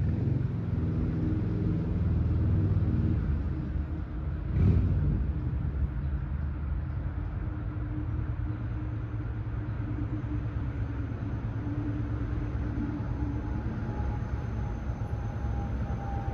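A vehicle engine rumbling at a distance, loudest in the first few seconds, with a single thump about four and a half seconds in. A faint high steady whine comes in near the end.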